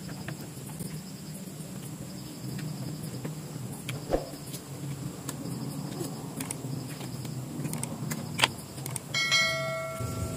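Soft clicks and taps of someone eating with their fingers from a plate, over a steady low hum. Near the end a bright bell-like chime of several tones rings out and fades over about a second.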